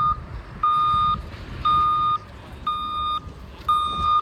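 Vehicle reversing alarm beeping steadily about once a second, each beep half a second long, over a low rumble.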